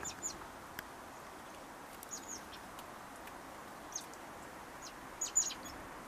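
High, thin chirps of a fledgling common blackbird begging for food: short downward-sliding notes in small groups every second or two, the loudest cluster of three or four near the end as an adult blackbird comes up to it.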